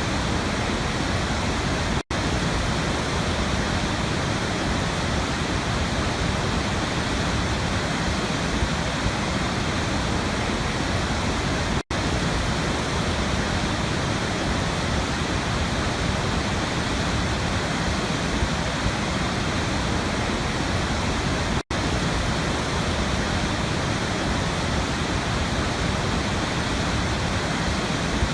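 Waterfall pouring in a steady, even rush of falling water. The sound cuts out for an instant three times, about ten seconds apart.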